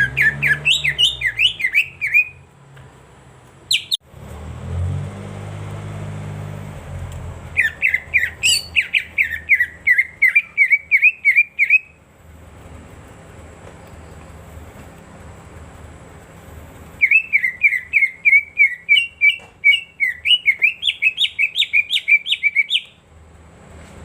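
Cucak ijo (green leafbird) singing: three bouts of fast, rapidly repeated chirping notes, each a few seconds long, with pauses between them. A low rumble sounds in the first pause, about four seconds in.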